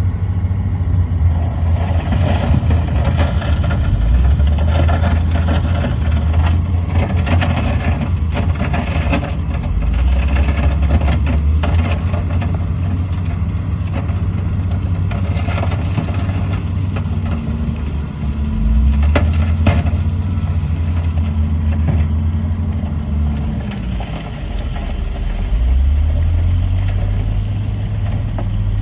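Heavy diesel engine of earthmoving machinery working, its pitch rising and falling several times as it is throttled up and down, with scattered clanks and rattles.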